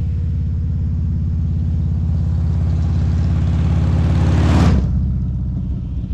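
Motorcycle engine running with a steady, pulsing exhaust note, swelling louder to a peak a little before five seconds in, then easing back.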